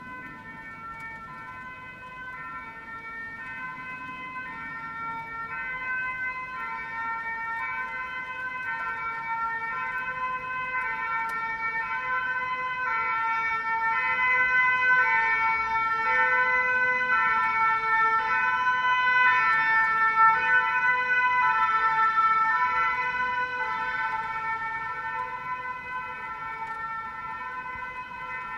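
Belgian emergency vehicle's two-tone siren, alternating steadily between a high and a low note about once a second. It grows louder toward the middle and then fades.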